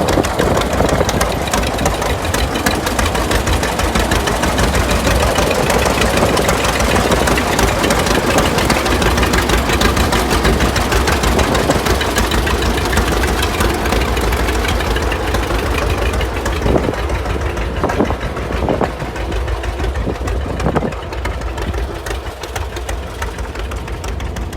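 John Deere two-cylinder tractor engine running with its rapid, even firing pulses, easing a little quieter in the last several seconds.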